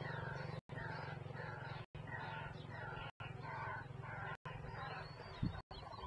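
Birds calling over a steady low hum; the sound drops out completely for a moment about every second and a quarter.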